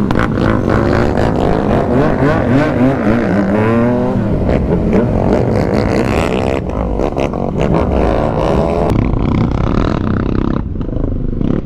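Modified 190 cc motorcycle engines revving hard at full throttle as the bikes launch and race. The pitch climbs and drops back several times as they shift up through the gears.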